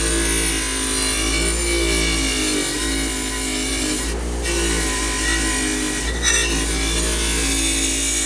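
Motor-driven wire wheel spinning and scrubbing old paint off a steel lamp shade held against it: a steady motor hum under the rasp of the wires on the metal, its pitch wavering as the piece is moved and pressed.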